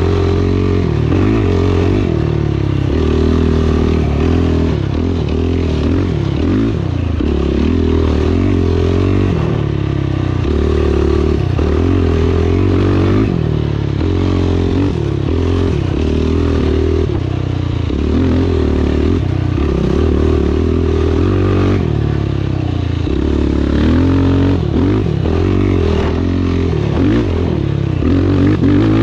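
Dirt bike engine racing off-road, its revs climbing and dropping again and again as the rider accelerates and backs off.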